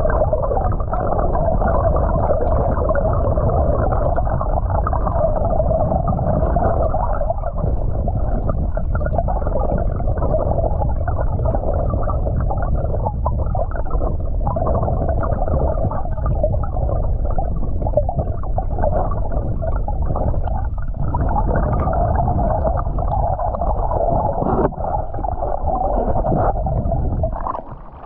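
River current rushing past a camera held underwater, heard as a steady, muffled rumble. Just before the end the sound dips and changes as the camera comes up out of the water.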